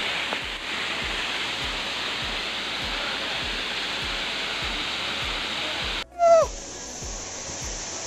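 Waterfall pouring steadily, a dense even rush of falling water. About six seconds in the sound drops out for a moment and a short falling tone is heard, then the water continues a little quieter.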